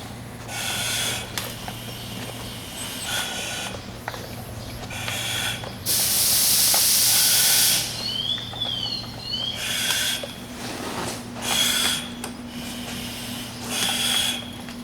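Firefighters breathing through SCBA face pieces and regulators, each breath a short hiss every second or two. About six seconds in comes a loud hiss of compressed air lasting nearly two seconds as the RIT air line is connected and air starts filling the firefighter's SCBA. A steady low hum runs underneath.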